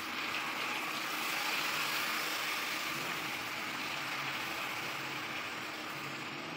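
Goat meat sizzling in a hot stainless-steel pot just after a little water goes in: a steady, hissing sizzle that comes up sharply at once and eases slightly after the first couple of seconds.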